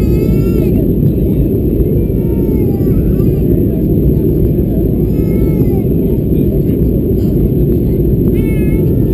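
Steady, loud cabin noise of an Airbus A320-214 on final approach: the rush of airflow and its CFM56 engines. Over it, high wavering cries, each about a second long, like a cat meowing, come and go three times.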